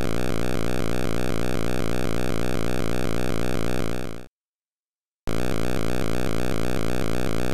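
Synthesized 8-bit helicopter rotor sound effect: a steady electronic buzz chopped by a fast, even pulse. It fades out about four seconds in, stops for about a second, then starts again abruptly.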